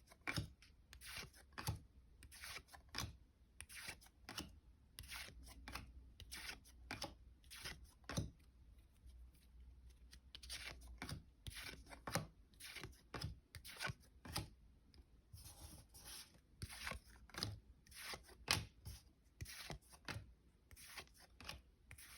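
Stiff trading cards, from a 2021 Contenders football pack, being slid off a stack one after another, each making a short papery swish or flick, often one or two a second.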